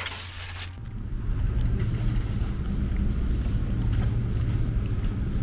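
Wind buffeting the microphone at the seashore: a short hiss at the start, then a steady low rumble from about a second in.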